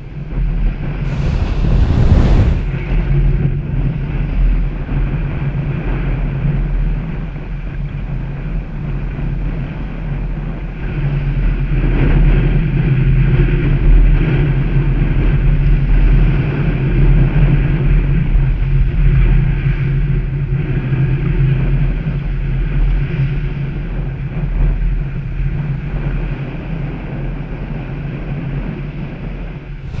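Small waves breaking and washing up a sandy beach, with a brighter hiss as one breaks close by about two seconds in. Wind buffets the microphone, and a steady low drone runs underneath.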